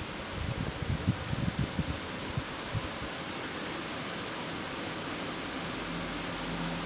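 Night outdoor ambience: a steady hiss with an insect chirring in a high, finely pulsing band that breaks off briefly about a second in and again near the middle, and low rumbling flutters during the first few seconds.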